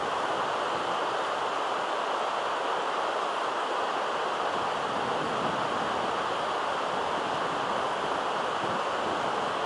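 Steady rushing of flowing water, an even hiss with no breaks or separate events.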